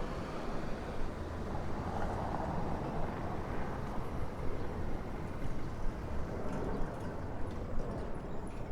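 Outdoor city street sound: a steady low traffic rumble, swelling as a vehicle passes about two seconds in.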